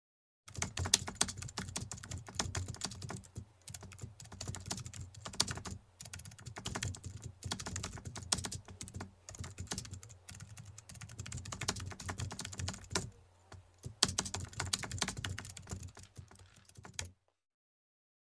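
Computer-keyboard typing sound effect: rapid key clicks in spurts with brief pauses. It starts about half a second in and cuts off abruptly near the end.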